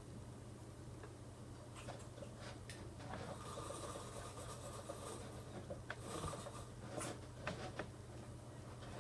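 Headphone parts being handled and fitted: light rubbing and scraping, with a few sharp clicks in the second half, over a low steady hum.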